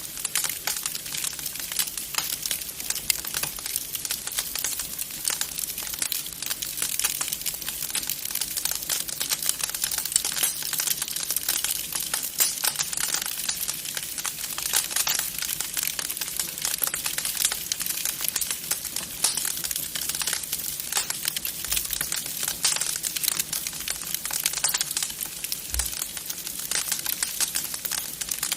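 Wood fire crackling in a fireplace: a dense, steady stream of small pops and snaps over a soft hiss.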